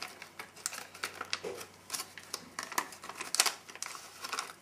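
MRE pound cake pouch of stiff foil-laminate being torn open and handled, crinkling with an irregular run of sharp crackles and clicks.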